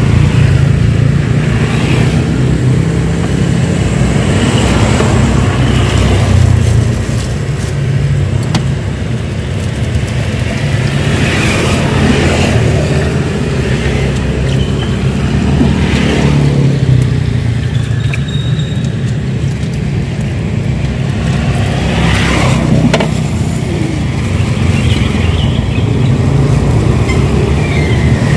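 Road traffic: motorcycles and cars passing one after another on a wet road, each rising and fading over a steady low engine rumble.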